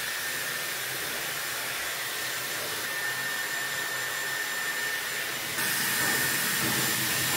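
Handheld hair dryer blowing steadily, with a thin high whine over the rush of air; it gets louder about two-thirds of the way through.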